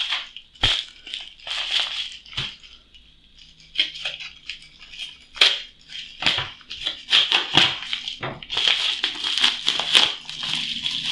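Packaging being opened and handled by hand: irregular crinkling and crackling with sharp snaps, coming thicker and more continuous in the last few seconds.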